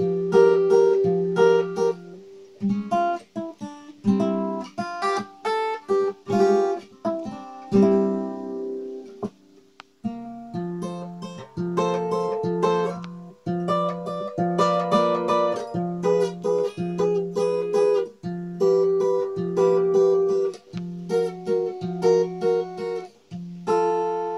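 Acoustic guitar played solo: strummed chords and picked notes in a loose jam. It falls almost silent about ten seconds in, then the chords start again.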